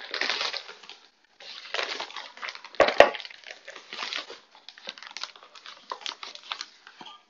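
Flour bag crinkling and rustling as a measuring cup is dug into it to scoop out cake flour, with a couple of sharp knocks about three seconds in.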